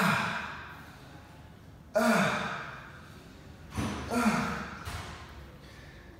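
A man's strained, breathy exhales, one with each dumbbell curl rep, about every two seconds, each starting loud and falling in pitch as it fades. They are the effort sounds of the last set of a 100-rep bicep curl burnout.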